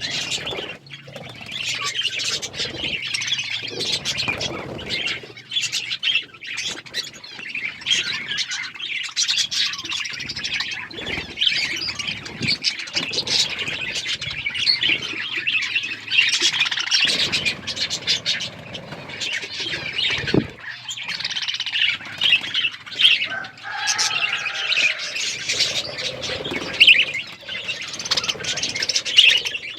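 A flock of budgerigars chattering continuously, with many overlapping chirps, warbles and squawks and now and then a flutter of wings.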